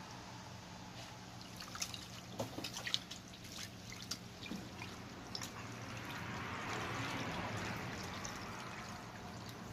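Mouth and hand sounds of eating grilled quail: scattered small clicks and smacks of chewing in the first half. About six seconds in, a soft rushing noise swells and fades over a steady low hum.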